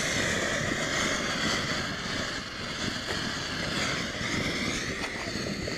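Ground fountain firework spraying sparks with a steady hiss, a few faint crackles mixed in.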